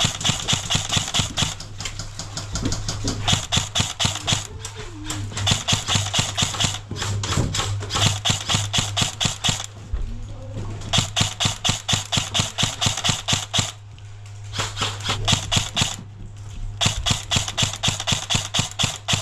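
Airsoft guns firing on full auto: long bursts of rapid, evenly spaced shots, about seven bursts with short pauses between them, over a steady low hum.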